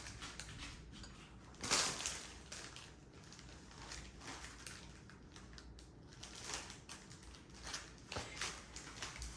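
Small plastic bags of diamond painting drills being handled, crinkling and rustling in irregular bursts, with one louder crackle about two seconds in.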